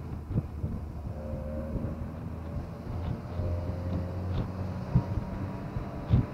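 Vehicle engine running steadily with road rumble, heard from inside the cab while driving. A couple of sharp jolts come near the end as the vehicle hits bumps.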